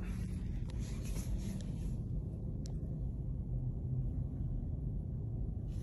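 Quiet, steady low rumble of room tone, with two faint clicks from the phone being handled.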